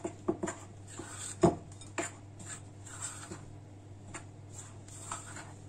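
Pizza dough being kneaded by hand in a mixing bowl, with scattered light knocks and clinks against the bowl; the sharpest knock comes about a second and a half in.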